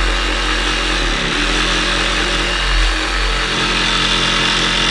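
Cordless DeWalt jigsaw running steadily as it trims the uneven edge of a cut-out in laminated furniture board.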